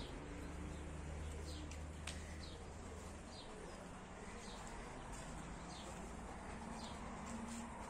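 A small bird chirping: short high chirps, each falling in pitch, repeat over and over, over a low steady hum that stops about three seconds in.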